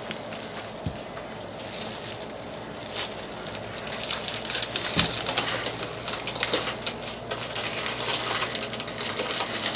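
Handheld cleaning brush scrubbing an elephant-print Air Jordan 5 sneaker, its upper and then the sole edge: quick, rough scratching strokes that get busier and louder from about four seconds in.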